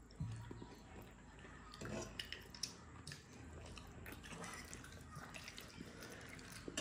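Quiet eating sounds of someone chewing momos: wet mouth noises with scattered small clicks and taps.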